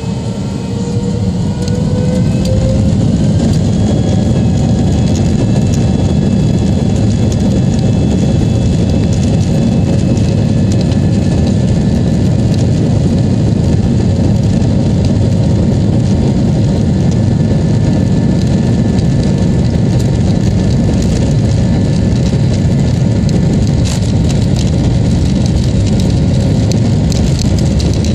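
Airbus A320's jet engines spooling up to takeoff power, heard from inside the cabin: a rising whine over the first few seconds, then a steady loud roar with a deep rumble through the takeoff roll.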